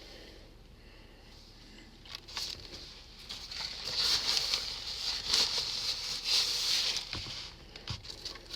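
Close-up eating noises: chewing and mouth sounds from biting into and chewing an everything bagel, a crackly run of small clicks that builds about two seconds in and is loudest in the middle.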